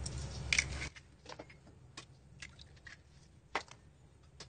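Eggshells being cracked and pulled apart over a bowl: a few short, separate clicks and taps, the loudest about three and a half seconds in. A low background hum cuts off about a second in.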